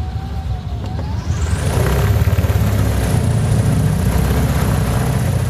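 ElectraFlyer-C's electric motor and propeller running up under increasing power, a loud low rumble with a whine that climbs steeply in pitch between about one and two seconds in, then holds high.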